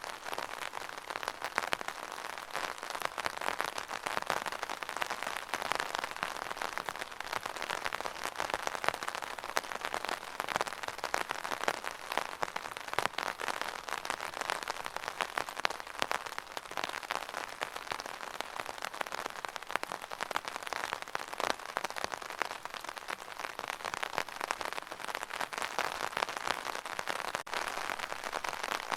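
Rain falling on an umbrella: a dense, steady patter of drops hitting the taut canopy.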